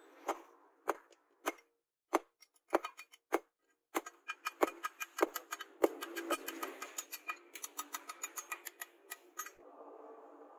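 Hammer blows on red-hot steel held on a cylindrical steel post anvil, forging a mini trowel blade: single strikes a little over half a second apart, then a quick run of rapid, closely spaced blows. Near the end the hammering stops and a steady noise from the coal forge takes over.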